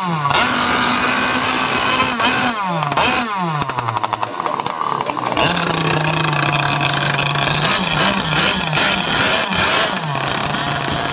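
Small two-stroke gas engines of racing RC powerboats, converted chainsaw and brushcutter engines, running at high revs, with the pitch dropping sharply several times in the first few seconds. A choppy, rapid ticking stretch comes in the middle, then a steadier engine note that steps up and down.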